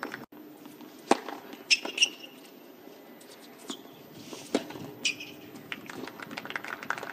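Tennis rally on a hard court: the ball struck by racket about a second in and again after four and a half seconds, each a sharp pop, with short high squeaks of tennis shoes on the court surface after each hit.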